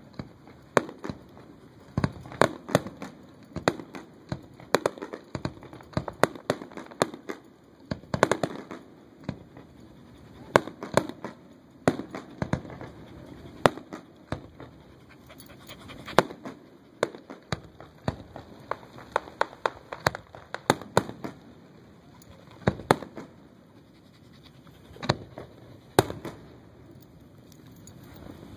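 Aerial fireworks shells bursting in a display: sharp bangs at irregular intervals, often two or three in quick succession, with a low rumble lingering between them.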